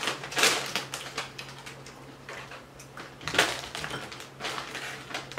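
Crinkly foil chip bag handled and tipped, Zapp's Creole Onion potato chips sliding and rattling out onto a plate in a quick run of small crackles and clicks, with louder crinkles of the bag about half a second in and again past the middle.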